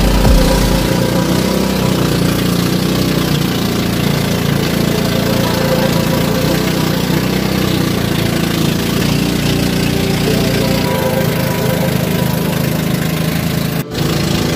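Small boat engine of a motorized outrigger canoe running steadily at a constant speed, with water hissing along the hull. The sound breaks off for an instant about a second before the end, then the engine carries on.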